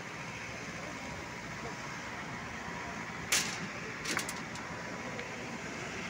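Steady background din of a construction site at work, with a sharp clank of metal a little over three seconds in and a short cluster of clinks about a second later.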